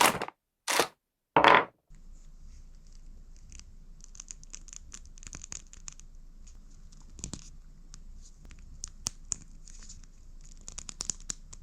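One Piece toy figures being handled: three loud short scraping strokes in the first second and a half, then faint scratching and small clicks over a low steady hum.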